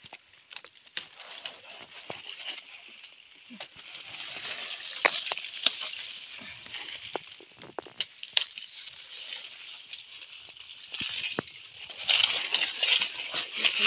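Leafy branches rustling and dry leaves and twigs crackling and snapping as a plant is handled and someone moves through forest undergrowth, with scattered sharp clicks and a louder spell of rustling near the end. A steady high-pitched insect drone sounds throughout.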